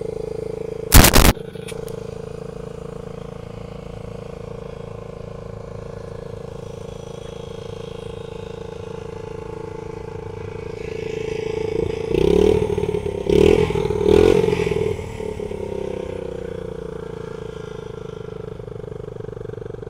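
1991 Honda Z50R's small four-stroke single-cylinder engine idling steadily. There is a loud sharp knock about a second in, and a louder swell with three pulses between about twelve and fifteen seconds in.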